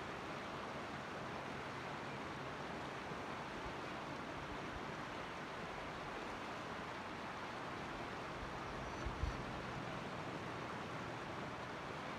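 Mountain creek water rushing steadily, with a brief low thump about nine seconds in.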